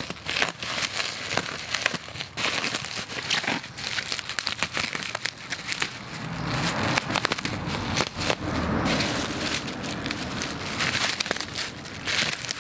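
Bubble wrap and plastic film crinkling and crackling as they are cut and pulled apart by hand, with a steady run of small crackles. A low rumble joins in from about the middle.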